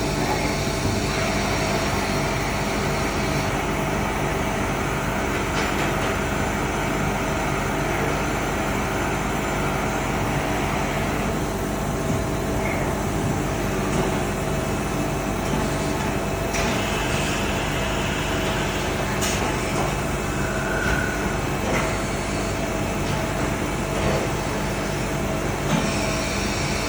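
NC lathe running a drilling job on the outside diameter of a part: steady machine noise with a constant hum and tone, shifting in character a few times.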